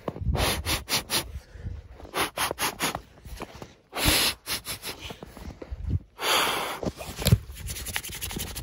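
A person moving about on snow to warm cold hands: short runs of quick crunching or rubbing strokes, several a second, and a longer breathy rush about six seconds in.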